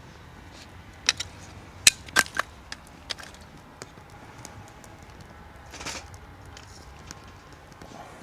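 A series of irregular sharp clicks and knocks, the loudest clustered about one to three seconds in, with a short rustle near the end.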